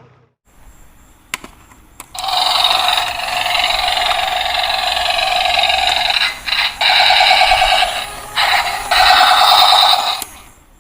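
A battery-powered toy vehicle, likely the toy military tank, playing its electronic sound effect through a tiny speaker: a loud, thin, buzzy, rapidly pulsing sound with no bass. It starts about two seconds in after a couple of clicks, breaks off briefly a few times, and stops near the end.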